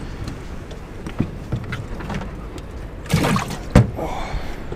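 Handling noises in a small fishing boat as a crappie is put into the livewell: a few light taps, a louder clatter about three seconds in and a sharp knock just after, then a short wash of water.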